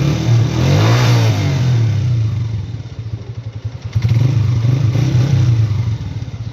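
Honda CG125's single-cylinder four-stroke engine revved twice, the pitch rising and falling each time and dropping back to idle in between.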